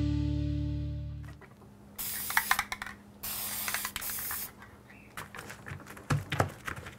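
Music fades out, then an aerosol spray-paint can hisses in two bursts of about a second each, followed by a few quieter knocks and clicks.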